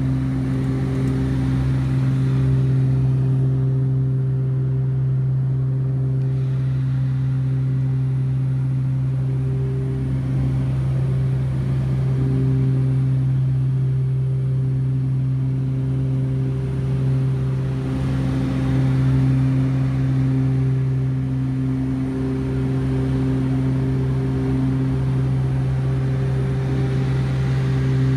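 The twin Pratt & Whitney PT6A turboprops of a Beechcraft King Air 200 heard from inside the cockpit: a steady, loud low propeller drone with fainter higher hums above it that swell and fade.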